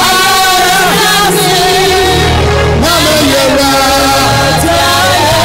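Loud amplified gospel worship music: a sung melody line over a steady bass accompaniment.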